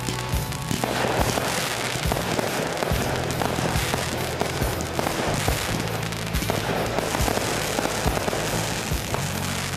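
Fireworks display: shells and comets launching and bursting in a rapid run of sharp bangs and crackles over a continuous hiss, with music playing underneath.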